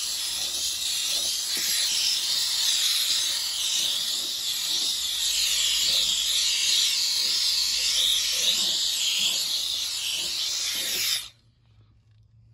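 Grant's handheld steam cleaner jetting steam in a steady hiss through its flexible hose and small stiff brush end. The steam cuts off suddenly near the end.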